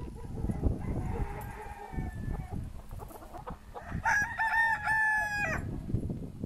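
Rooster crowing: one loud crow about four seconds in, lasting about a second and a half in a few held segments, with a fainter, more distant crow in the first couple of seconds.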